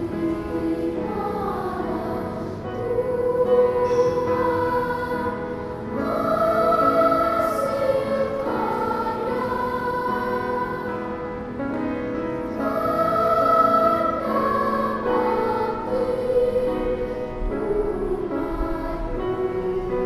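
Children's choir of boys and girls singing a slow song with long held notes, swelling and easing in volume.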